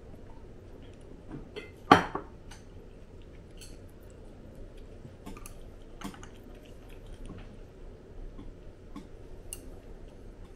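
Tableware and eating utensils clicking lightly and irregularly during a meal, with one much louder clink of a dish being knocked or set down about two seconds in.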